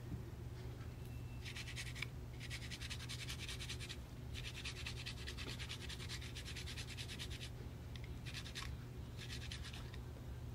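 Garlic being grated on a small metal box grater: fast rasping strokes in several runs, the longest about three seconds, with short pauses between them, over a steady low hum.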